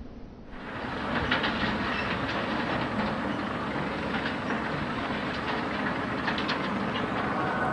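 A steady mechanical rumble with scattered clicks and knocks, cutting in abruptly about half a second in.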